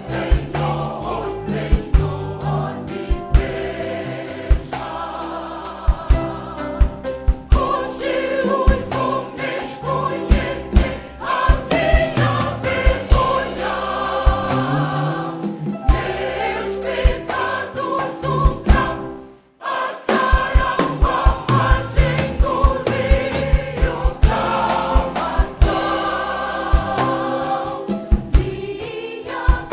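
Choir singing a Portuguese gospel song over instrumental accompaniment with a steady beat. The music breaks off briefly about two-thirds of the way through, then comes back in.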